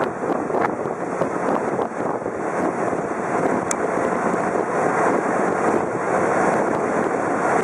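Motorised sampan running steadily under way: a constant engine drone mixed with wind buffeting the microphone and water washing past the hull.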